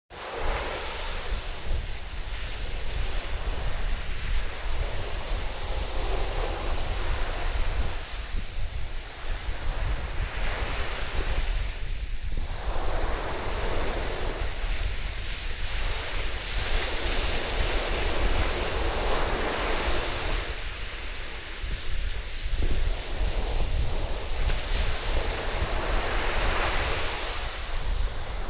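Sea waves breaking and washing up the sand in swells every few seconds, over a steady low rumble of wind buffeting the microphone.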